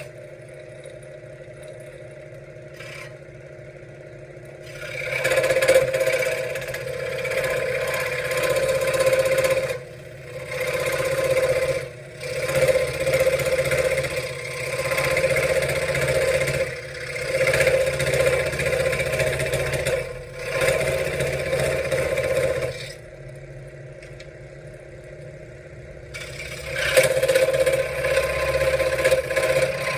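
Benchtop scroll saw running, its reciprocating blade cutting wood in long stretches broken by short pauses. It runs more quietly for the first few seconds and again for a few seconds near the end.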